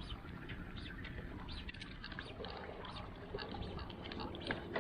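Steady low background noise of a fishing boat on the water, with scattered light clicks and knocks.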